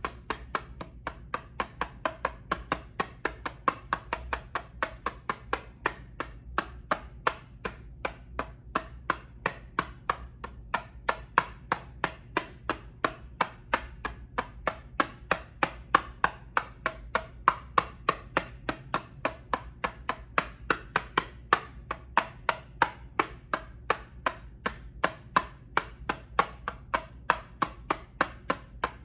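Steady tapping on a plastic eyeshadow palette: sharp, even clicks at about three a second, played as ASMR trigger sounds.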